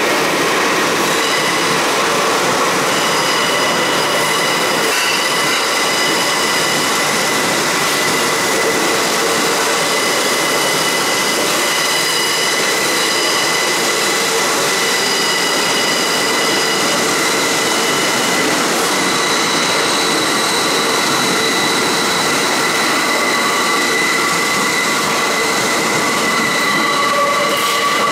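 Bombardier R62A subway cars rolling out of the station, the wheels running over the rails in a steady loud rush. A high squeal of wheels on rail rides over it the whole way.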